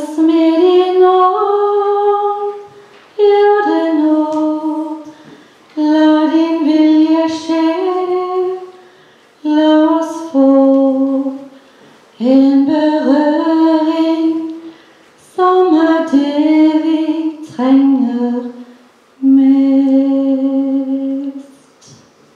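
A woman singing solo and unaccompanied, a slow melody in short phrases with breaths between, ending on a long held note.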